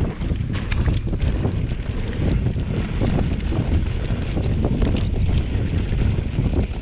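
Wind buffeting the microphone on a moving electric mountain bike, with frequent small knocks and rattles from the bike over rough trail.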